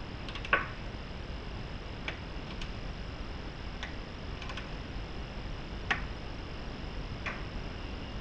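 Torque wrench clicking as bolts are tightened to 10 Nm. Sharp single clicks come every second or two, the loudest about half a second in and another near six seconds, over a low steady hum.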